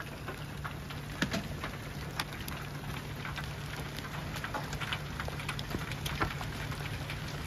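Large hailstones from a tornadic supercell striking hard, sharp irregular cracks every second or so over a steady patter of smaller hail and rain.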